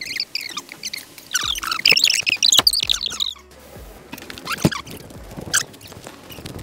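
Small birds chirping and twittering in quick, busy runs, densest a second or two in, with a few sharp clicks.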